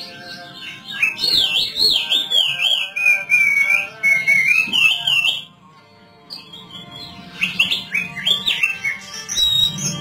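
A caged thick-billed white-eye (opior paruh tebal) sings a fast, melodious warbling song of high whistled notes. It pauses briefly a little past halfway, then sings on.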